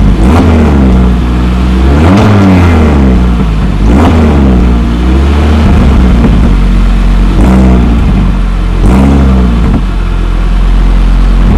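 Audi RS3 8Y's turbocharged 2.5-litre inline five-cylinder engine at idle, blipped five times. Each rev rises and falls back to idle.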